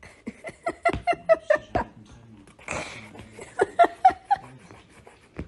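A person laughing in two quick runs of short 'ha' pulses, about five a second, with a breathy intake of air between them.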